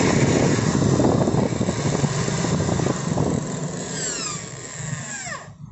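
Corded 10 mm electric drill's motor and gearbox running at speed with the chuck held by hand, on a test run after its worn drive gear was replaced. About four seconds in it is switched off and its whine falls in pitch as it spins down, stopping near the end.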